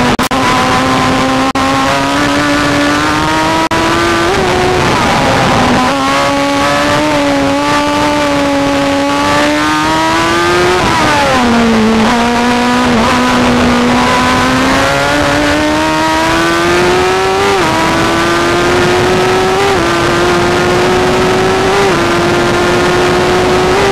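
Formula Gloria single-seater's engine at high revs, heard onboard with wind noise. The pitch climbs and then drops at upshifts. About ten seconds in it falls away sharply as the car brakes and downshifts for a corner, and it climbs again with quick upshifts about every two seconds near the end.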